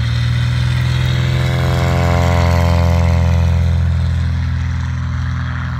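Harmon Rocket's piston engine and propeller at full takeoff power during the takeoff run. The drone swells to its loudest about halfway through, with a sweeping, phasing tone as the plane passes, then fades.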